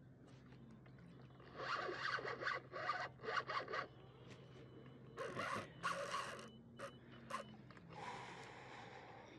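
Spinning fishing reel's drag buzzing in rasping bursts as line is pulled off by a hooked red drum, with two long runs of bursts and a few shorter ones near the end.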